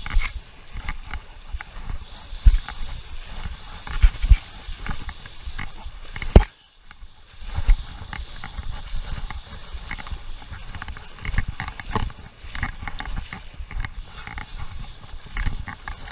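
Irregular knocking and rattling with a low rumble. One sharp, loud knock about six seconds in is followed by about a second of near silence.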